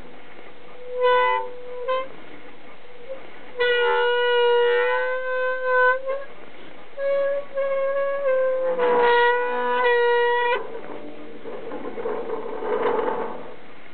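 A rotating stile gate squealing as it is turned: a series of long, pitched squeaks, slightly muffled by a thin layer of snow on the stile. Near the end the squeal gives way to a rougher grating sound.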